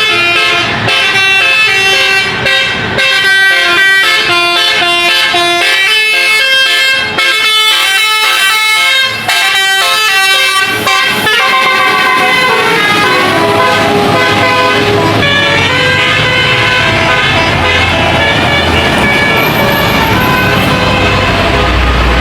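An Indonesian bus's multi-tone telolet horn plays quick melodic runs of stepped notes, loudest in the first half. Later the tunes carry on more faintly over the bus's diesel engine running and the noise of it passing, which grows louder near the end.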